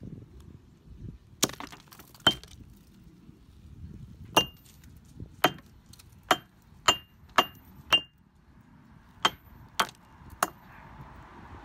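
A steel hammer crushing cashew nuts against a concrete paving slab: about eleven sharp, uneven blows, several with a brief metallic ring.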